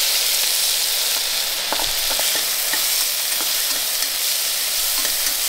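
Chopped onions sizzling steadily in hot oil in a stainless steel pressure cooker, stirred with a slotted steel spoon that gives a few light clicks against the pot.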